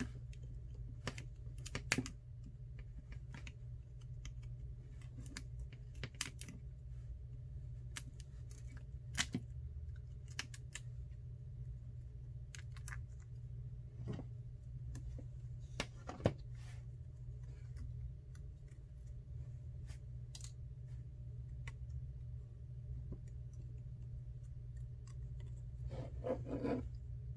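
Scattered small clicks and scratches of a plastic piece being prised and peeled off an iPhone XR's LCD assembly, with a denser patch of scraping near the end, over a low steady hum.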